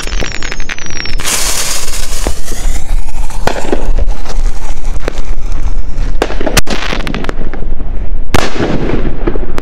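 Fuse of a 6-inch aerial firework shell spitting and hissing in its mortar tube after being lit, then the lift charge firing with one sharp bang about six and a half seconds in as the shell is launched.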